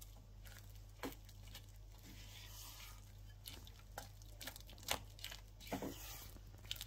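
A silicone spatula beating and scraping soft cream cheese and icing sugar in a glass bowl: faint squishing, with light clicks scattered through, more often in the second half.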